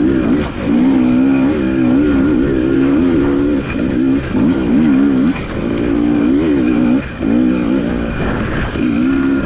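Off-road dirt bike engine revving up and down as the rider works the throttle, its pitch rising and falling over and over, with brief drops near the start and about seven seconds in.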